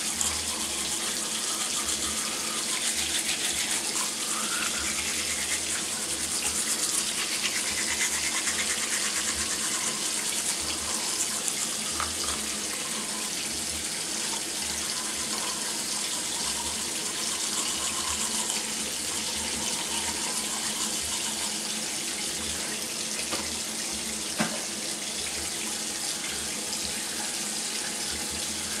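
Manual toothbrush scrubbing teeth over a steady hiss of a bathroom tap running, with one sharp click about 24 seconds in.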